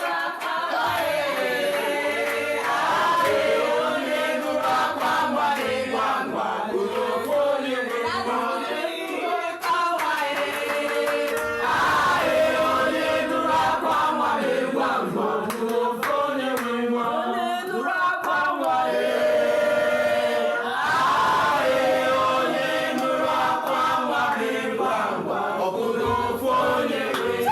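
Music: a group of voices singing together in chorus, continuing throughout.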